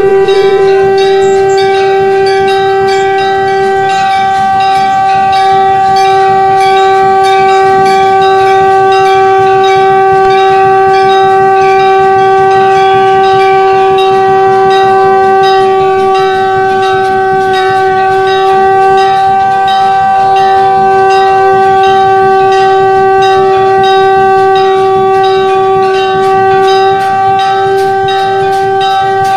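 Conch shell (shankh) blown in one long, steady, loud note, dipping briefly a few times.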